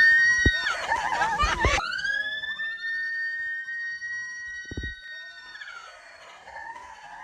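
High-pitched screaming from riders on a river rapids raft ride: a brief scream, then a long held scream that rises at the start, lasts about four seconds and trails off. Quieter splashing and rushing water follow.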